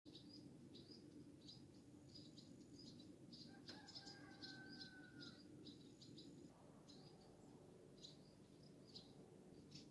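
Faint chirping of small birds: short high chirps, a few a second, with one longer held tone about four seconds in, over a low steady rumble.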